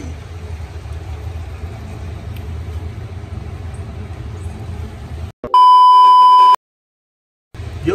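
A low steady hum, then, about five and a half seconds in, a loud steady test-tone beep lasting about a second: the TV colour-bars test tone used as an edit transition.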